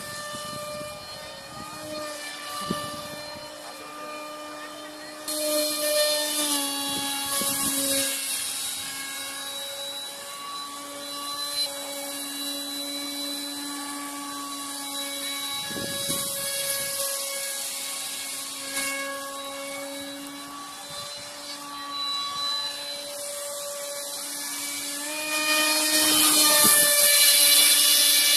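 RC model fighter jet's motor whining steadily in flight, its pitch shifting with throttle. It grows louder and hissier on two close passes, about five seconds in and again near the end, with the pitch dropping as it goes by.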